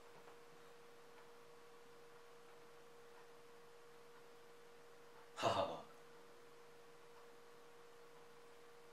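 A faint steady single-pitch hum, and about five and a half seconds in, one short sharp breath from a man.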